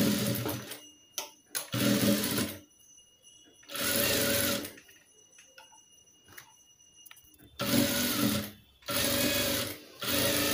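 Jack F4 industrial lockstitch sewing machine stitching in short runs of about a second, starting and stopping about five times, as a topstitch is sewn along a blouse neckline. A few faint clicks from handling the cloth fall in the pauses.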